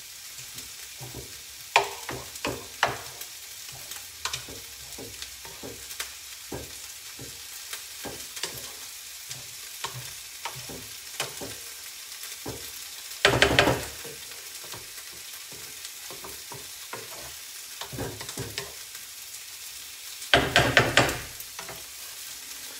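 Pork mince sizzling steadily in a frying pan while a wooden spoon stirs the sauce through it, with many short scrapes and knocks against the pan. There are two louder bursts of scraping, about 13 seconds in and about 20 seconds in.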